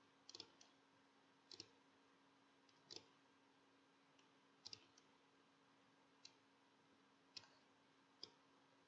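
Faint computer mouse button clicks, about eight spaced irregularly a second or more apart, some in quick pairs, over a faint steady hum.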